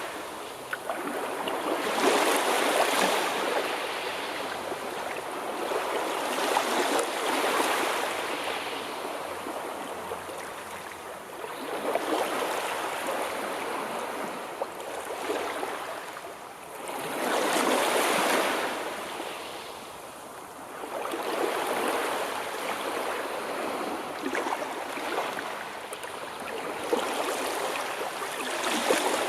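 Sea waves breaking and washing back, one surge of surf every five seconds or so.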